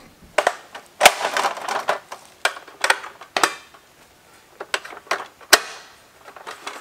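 Aluminium multi-position ladder being handled and adjusted: a string of irregular metallic clicks and clanks.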